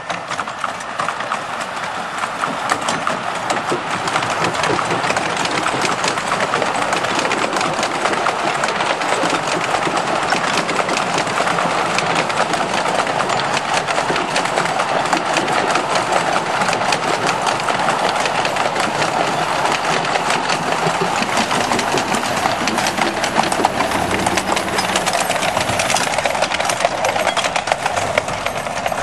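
Miniature 7¼-inch gauge steam locomotive and its wagons running past close by: a steady, dense clatter of wheels on the track, growing louder over the first few seconds.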